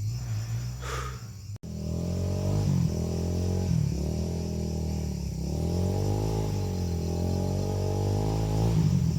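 Dirt bike engine revving up and down over and over, labouring on a steep, slippery climb. There is a brief break in the sound about a second and a half in.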